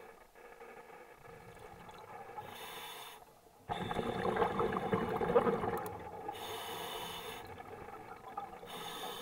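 A scuba diver breathing through a regulator underwater: a few hissing breaths, with a louder stretch from about four to six seconds in.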